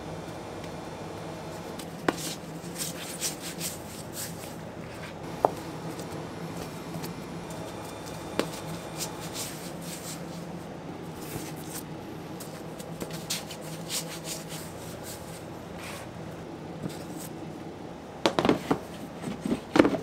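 Soft taps and rubbing of gloved hands rounding pieces of pretzel dough on a plastic work table, over a steady low hum. Near the end, a quick run of louder knocks and clatter as a plastic dough box and its lid are handled.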